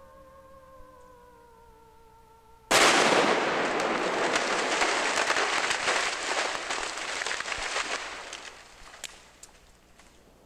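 An explosive charge blasting a dead snag: a sudden loud blast about three seconds in, followed by several seconds of debris crashing and clattering down, fading by about eight seconds, with a few sharp cracks near the end. Before the blast a steady wavering tone sounds, and it cuts off as the blast hits.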